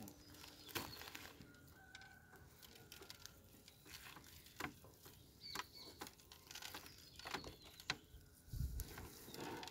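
Faint scattered ticks of coarse rock salt being sprinkled and patted onto a raw beef rib, with a few faint clucks from chickens in the background.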